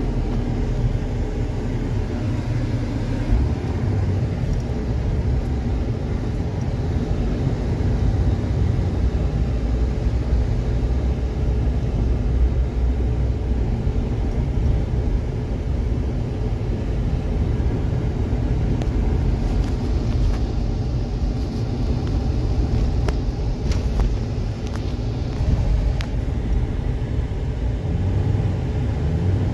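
Jeep driving slowly over a snow-covered dirt road, heard from inside the cab: a steady low engine and tyre rumble. A few light clicks or knocks come about two-thirds of the way in.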